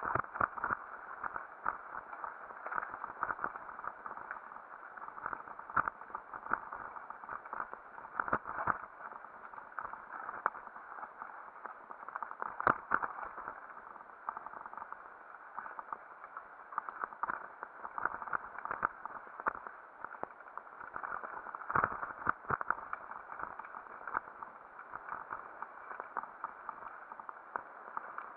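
Mountain bike rattling and clattering over a rough forest trail at speed, with a steady rush of wind and many short knocks from roots and stones.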